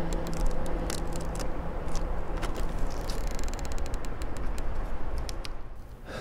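Scattered sharp clicks and crackles over a low rumble as the metal clasps of a carved wooden box are worked and its lid is lifted. A sustained droning music chord fades out about halfway.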